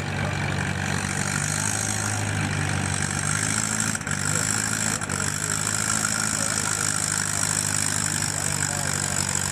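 Antique tractor engine running steadily at a low, even pitch.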